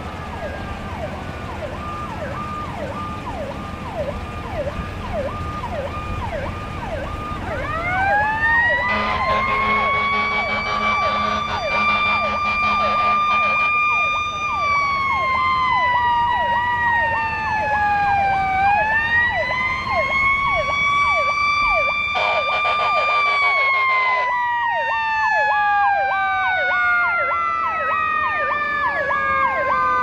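Approaching fire engine's sirens: an electronic yelp siren cycling rapidly throughout, joined about eight seconds in by a mechanical Q siren winding up to a high steady wail, coasting down, winding up again, then coasting slowly down near the end. Air horn blasts sound over it twice along the way.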